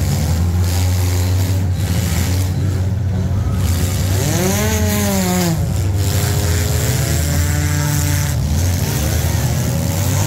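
Several demolition-derby compact cars' engines running hard under a constant low drone, one revving up and dropping back about halfway through, with more revving after it.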